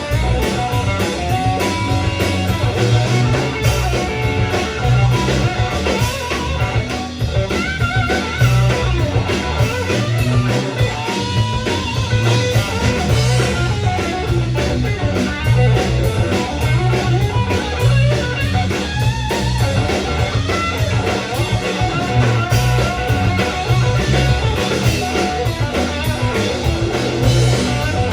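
Live rock band playing, with electric guitar over bass and a drum kit keeping a steady beat.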